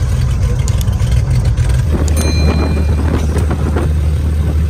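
Light aircraft's propeller engine running with a steady, deep drone. Its note shifts about two seconds in.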